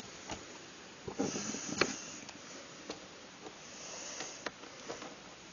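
Screwdriver work on a plastic keyboard case as screws are driven into the plastic: a few scattered light clicks and taps, the loudest a little under two seconds in, with a brief rustle just before it.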